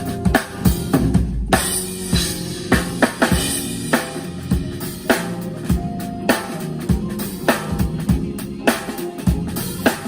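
Drum kit played in a busy groove: bass drum, snare and rimshot strokes, several a second.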